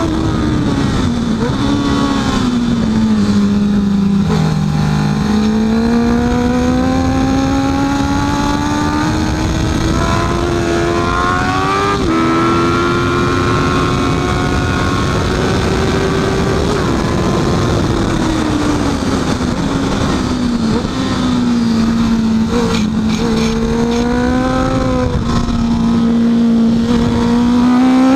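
Honda CB650F inline-four engine running hard on track, its pitch falling as it slows and rising again as it pulls through the gears, with a gear change about twelve seconds in. A steady rush of wind noise runs under it.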